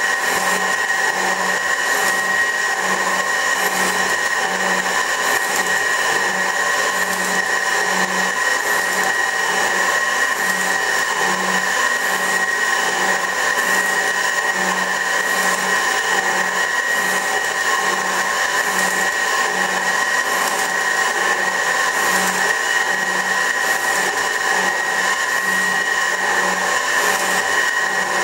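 24-inch Värnamo metal shaper running through a planing cut on steel: a steady mechanical whine from the drive with a regular pulse, about three every two seconds, from the ram's back-and-forth strokes.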